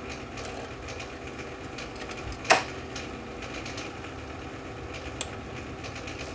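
Small metallic clicks and ticks of needle-nose pliers and tension springs being fitted to a reel-to-reel tape deck's transport mechanism, with one sharp metal snap about two and a half seconds in, over a steady low hum.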